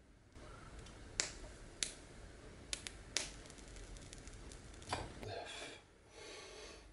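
Slice of ham sizzling under a high-power blue laser beam: a faint sizzle broken by sharp crackling pops at irregular intervals, with a louder hiss about five seconds in.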